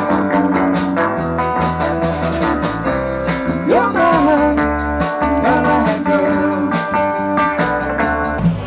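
Live rock band playing: electric guitars and keyboard over a steady drum beat, with a sliding note near the middle.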